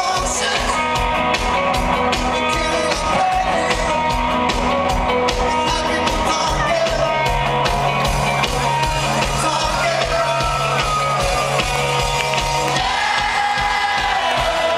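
Rock band playing live at concert volume: an even drum beat, electric guitars and bass, with a lead voice singing. Heard through a handheld camera's microphone from within the audience.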